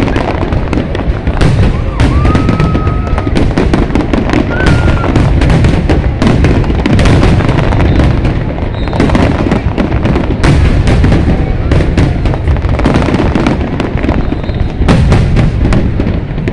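Fireworks display going off continuously: a dense, unbroken run of booms, pops and crackles, with no pause.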